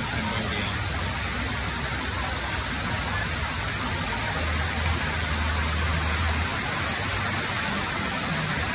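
Heavy tropical downpour, a steady hiss of rain on the street, with water pouring off the edge of an awning overhead.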